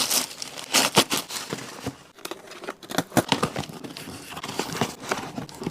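Parcel packaging being handled and opened by hand: irregular crinkling and rustling with short tearing sounds and clicks.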